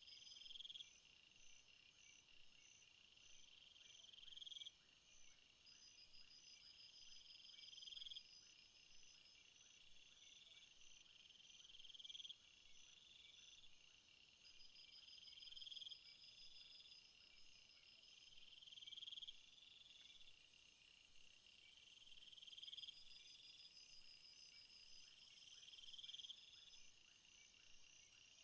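Faint insects calling. One rising call repeats about every three and a half to four seconds over steady pulsing trills, and a high, hissing buzz joins for about six seconds past the middle.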